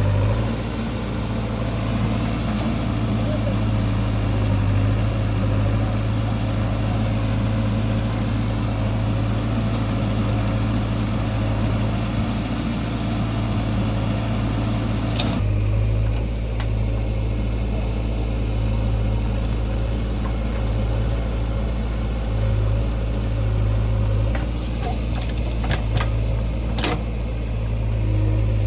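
Heavy diesel engine running steadily, as at a backhoe-and-tractor loading job. About halfway through the sound changes abruptly, and a few sharp clicks or knocks come near the end.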